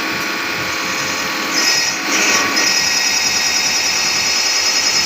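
Diesel injection pump test bench running steadily, turning a rotary distributor-type injection pump for a Toyota 1C/2C/3C diesel at about 600 rpm during a fuel-delivery check. A higher hiss comes in about one and a half seconds in and the running gets a little louder.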